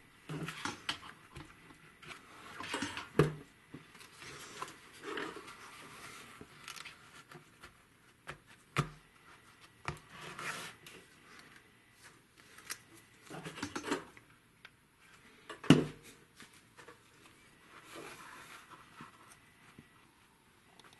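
Cardboard pattern pieces being handled and pressed into a felt-lined wooden case: irregular scraping and rustling of card, with three sharp knocks, the loudest about three-quarters of the way through.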